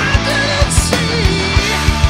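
Heavy rock music with a steady drum beat and guitar, played as the soundtrack.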